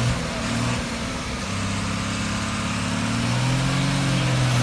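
Diesel engine of a Tata tractor-trailer truck running steadily under load as it pulls a loaded trailer through deep mud, its pitch rising gently toward the end.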